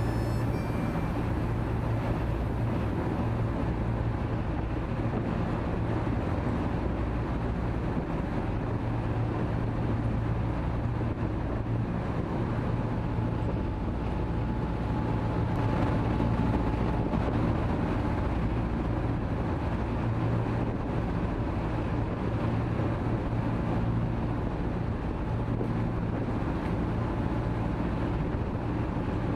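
Passenger ferry's engines droning steadily under way, with the rush of the churning wake, heard from the open stern deck.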